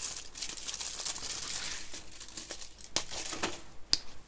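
Crinkling and rustling of something being handled at a kitchen counter, then a few sharp clicks about three and four seconds in.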